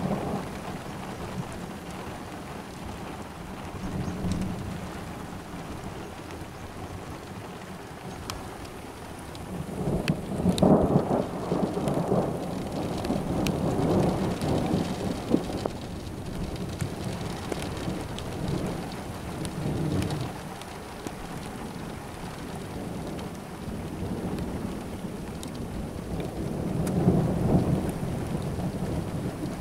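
Thunder rolling in long low rumbles over steady rain, swelling loudest about ten seconds in and again near the end. Scattered sharp ticks of drops sound through it.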